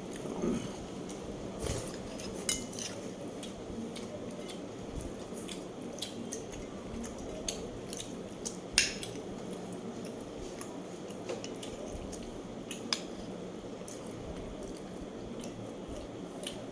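Scattered clinks and clicks of dishes and eating utensils while someone eats, the sharpest about nine seconds in, over a steady low background hiss.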